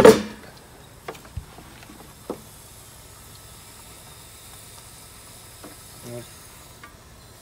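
An aluminium pressure canner lid set down with a loud metallic clank and a short ring at the start, followed by a few small clicks and a faint steady hiss and sizzle from the open canner of freshly processed, still-bubbling quart jars.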